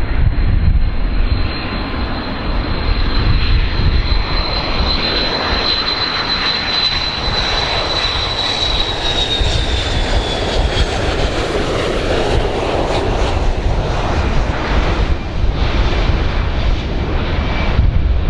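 Boeing 727's three rear-mounted Pratt & Whitney JT8D turbofans on landing approach, loud and steady with a low rumble. A high whine over it drops slightly in pitch about halfway through as the jet passes.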